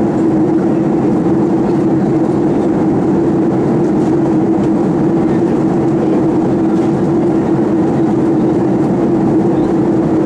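Steady jet engine and airflow noise inside the cabin of a Southwest Airlines Boeing 737 in flight, an even rush with a constant mid-pitched hum.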